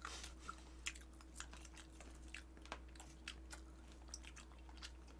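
Faint close-up chewing with scattered small irregular clicks and smacks while eating, over a low steady hum.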